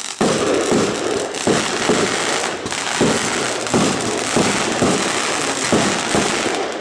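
A 99-shot, 20 mm consumer fireworks battery (Iskra-Szakal compound cake) firing: about ten sharp launch thumps, roughly one and a half a second, over a steady crackling hiss of bursting effects.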